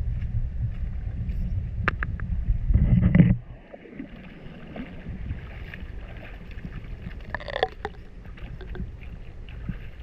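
Low rumble of wind on the microphone, outdoors by a stream, that cuts off suddenly about three seconds in. After it comes a quieter background with a few light knocks and a short burst of noise past the middle.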